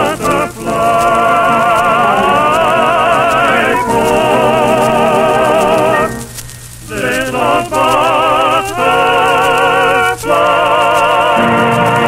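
Music: a singer holding long notes with a wide vibrato, in phrases broken by short pauses. The sound is thin and narrow, as on an old 1930s radio recording.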